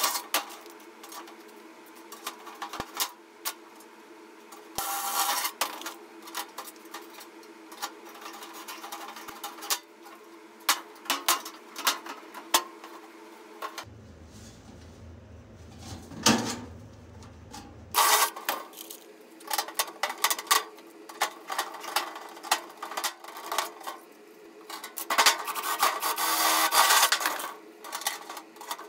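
Large thin tinplate can being handled and shifted on a steel workbench: irregular knocks, clattering and scraping of sheet metal, with a steady low hum underneath.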